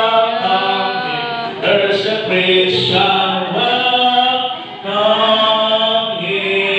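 A small congregation singing a hymn together, with long held notes.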